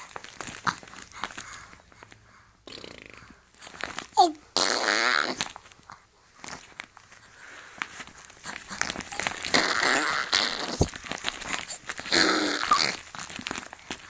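Baby blowing raspberries, buzzing its lips in several spluttering bursts a few seconds apart, with a short rising squeak among them.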